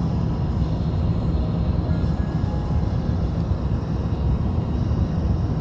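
Steady low cabin rumble of an Airbus A350-900 in flight on its descent, airflow and the Rolls-Royce Trent XWB engines heard from a window seat over the wing.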